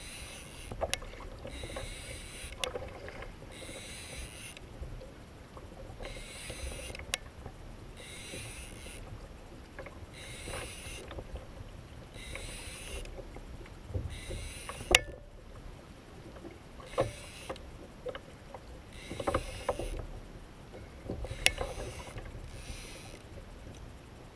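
Water washing against a fishing kayak's hull in short rushing swishes every second or two, with scattered sharp knocks and clicks from the boat and gear.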